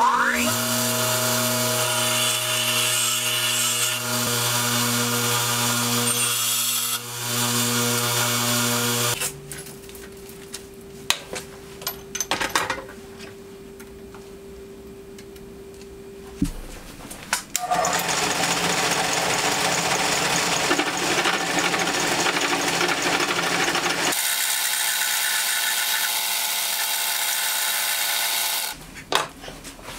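Bench grinder running steadily with a motor hum as a high-speed steel tool bit is ground, for about nine seconds. Then a quieter stretch of clicks as the bit is set in the lathe tool post, and from about seventeen seconds a metal lathe running steadily as it cuts the end of round steel stock.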